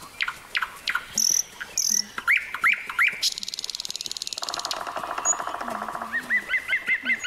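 Cartoon forest sound effects of birds and insects: short chirps and whistles, then two fast trills, one high and then one lower, in the middle, and a quick run of repeated chirps near the end.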